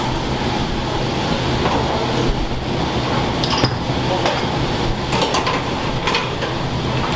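Udon shop kitchen noise: a steady hum, with a few short clinks of dishes and utensils in the second half.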